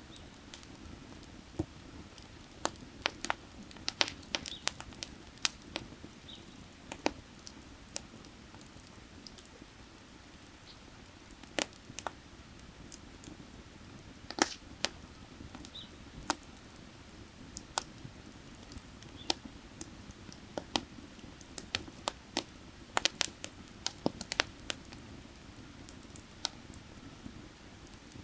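Firewood burning, crackling with irregular sharp pops and snaps, some in quick clusters. Under it runs a steady low rush of creek water.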